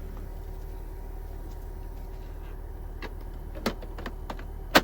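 A steady low mechanical hum with a faint whine, and several sharp clicks and knocks in the last two seconds, the loudest right at the end.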